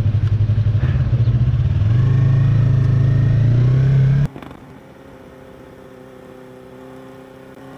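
Motorcycle engine heard close from the rider's position, a loud pulsing low note that steps up in pitch as the bike accelerates away. About four seconds in it cuts off abruptly to a much quieter, steady engine drone of a motorcycle cruising at constant speed.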